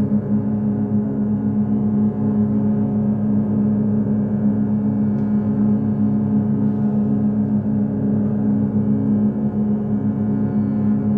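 Bowed double bass tones held and layered into one dense, steady low drone of many close pitches.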